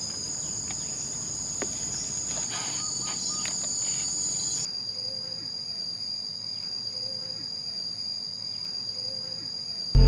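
Forest insects buzzing steadily in a high-pitched chorus. The chorus thins abruptly about halfway through, with faint rustling in the first few seconds.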